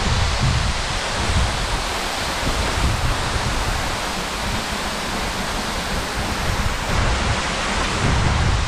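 Steady rushing of a waterfall, with irregular low buffeting of wind on the microphone.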